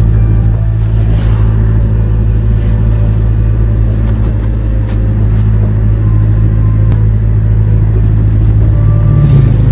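Engine and road noise from a moving vehicle cruising at a steady speed: a loud, steady low hum with rumble underneath.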